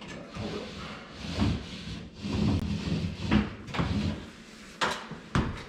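Knocking and rubbing handling noises with scattered thumps, and two sharp clicks near the end.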